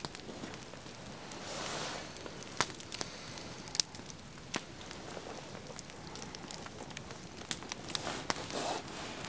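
A knife shaving a wooden stick, with scattered sharp pops and crackles from a small wood campfire.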